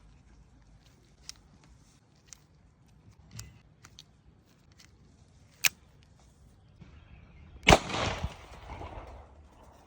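A single 7.65mm handgun shot about three quarters of the way in, a sharp crack that rings on and fades over about a second and a half, after several faint clicks of gun handling.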